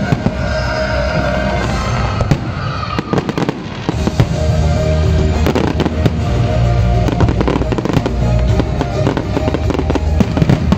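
Aerial fireworks bursting and crackling in rapid succession, many sharp bangs thickest from about four seconds in, with music playing alongside.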